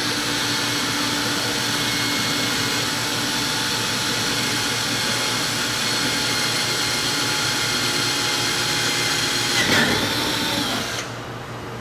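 Electric drill with a 3/8-inch bit boring through a kayak's thick plastic hull, its motor running at a steady speed. Near the end there is a brief louder burst, then the motor winds down and stops.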